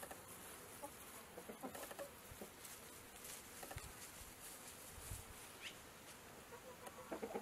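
Chickens clucking faintly and sparsely, with a quiet high hiss behind them; the clucking grows louder near the end.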